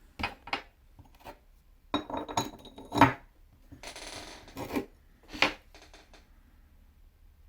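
Small metal parts and tools being handled: a series of clicks and clinks, the loudest about three seconds in, with a short scraping rub about four seconds in.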